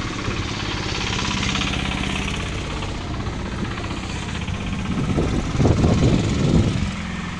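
Car engine idling steadily. About five seconds in comes a louder, uneven stretch of low sound lasting under two seconds.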